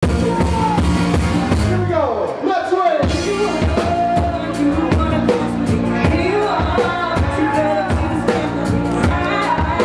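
Live rock band playing: a woman singing lead over electric guitar, bass guitar and a drum kit keeping a steady beat. The bass and kick drum drop out briefly about two seconds in.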